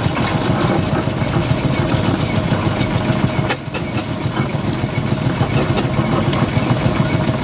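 Steam road roller running as it drives slowly past, a steady mechanical clatter of its engine and gearing with a low hum underneath. The sound dips briefly about halfway through.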